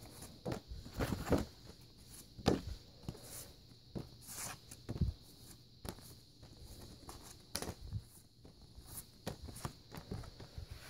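Stiff picture cards being handled and shifted on a carpet: quiet, irregular taps, slides and rustles.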